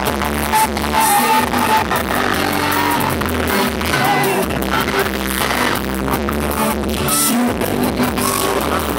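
Live pop music from a band playing loudly, recorded with poor, muddy sound: a heavy bass line under a singing voice.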